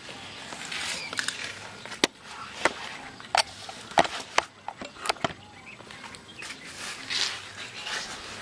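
A run of sharp knocks and taps, most of them packed into a couple of seconds in the middle, with rustling handling noise around them.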